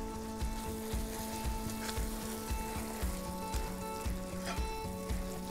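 Bolognese meat sauce of ground beef, tomato and carrot sizzling in a frying pan on the hob while it is stirred with a spatula.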